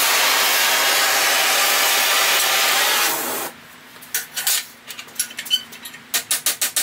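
Oxy-fuel torch flame hissing steadily as it heats a steel bar red-hot, stopping suddenly about three and a half seconds in. A ball-peen hammer then strikes the hot bar against a steel pipe: a few scattered blows, then a quick run of light, even taps near the end.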